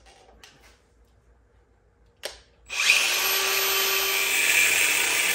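Cordless angle grinder with a cut-off wheel starting up about three seconds in, after a short knock, and cutting into a metal pipe held in a vise. It makes a steady high whine over a grinding hiss.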